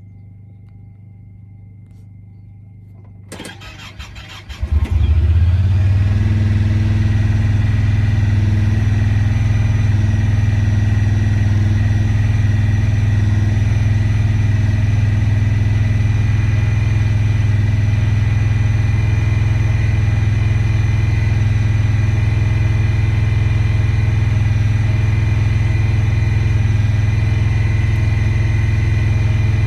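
Honda Pioneer 1000-5 side-by-side's parallel-twin engine cranked by the starter about three seconds in, catching about a second and a half later and then running at a steady idle.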